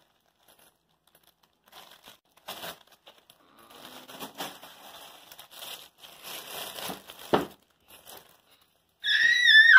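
Glossy plastic wrapper of an L.O.L. Surprise ball crinkling and tearing in uneven patches as it is pulled open, with one sharp snap near the end. A child's voice starts up just before the end.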